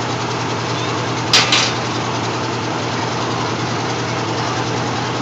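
Engine of a C.P. Huntington-style miniature zoo train locomotive idling with a steady low hum. About a second and a half in there is a brief, sharp double burst of noise.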